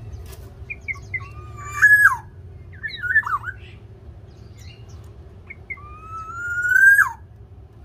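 Black-naped oriole (Javan kepodang) calling. It gives a few short notes, a loud call about two seconds in, and a quick cluster of notes a second later. Near the end comes a long, slowly rising call that ends in a sudden downward drop.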